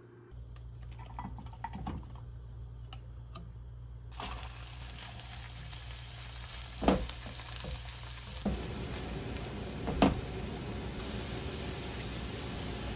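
Shredded cabbage and canned tuna sizzling in a frying pan while a wooden spoon stirs them. The first few seconds are quiet, with light clicks, and the steady sizzle begins about four seconds in. Two sharp knocks stand out, about seven and ten seconds in.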